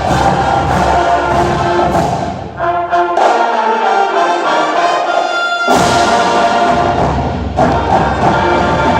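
Orchestral music led by brass over a steady beat about twice a second; about two and a half seconds in, the bass and beat drop away to held brass chords, and the full orchestra comes back in about three seconds later.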